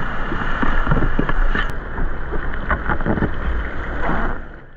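Water splashing and sloshing around whitewater kayaks, in many short irregular splashes over a low rumble of wind on the action camera's microphone. It fades out near the end.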